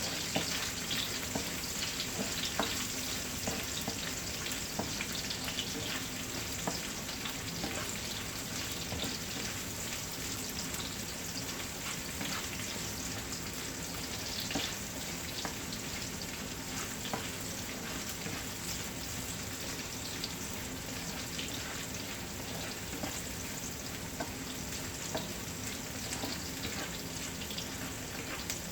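Garlic and onion sautéing in hot oil in a pan, a steady sizzle, with scattered light clicks of a utensil stirring.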